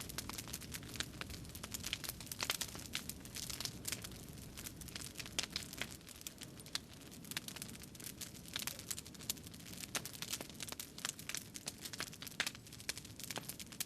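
Continuous irregular crinkling and crackling, made of many small sharp clicks.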